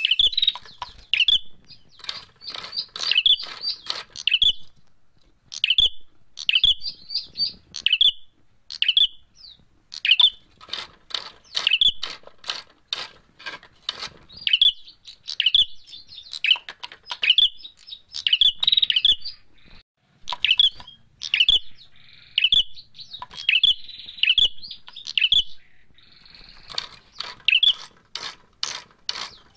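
Caged prenjak merah (ashy tailorbird) calling excitedly: series of short, sharp, high chirps repeated over and over, mixed with sharp clicks as it flicks its wings and hops about the cage. This is the agitated fighting call sold as a lure for trapping.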